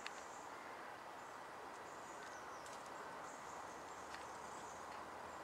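Quiet outdoor ambience: a steady hiss with faint, short high-pitched chirps every second or so and a few faint clicks.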